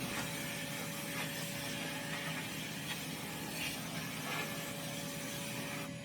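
Sandblast cabinet running: the blast gun's compressed air and 80-grit aluminium oxide media hissing steadily against a brake drum, with a faint steady tone underneath. The hiss cuts off just before the end.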